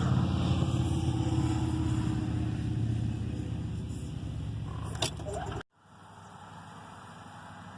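Motor vehicle running, a steady low engine and road rumble that cuts off abruptly about five and a half seconds in, leaving a quieter steady hiss; a brief sharp sound comes just before the cut.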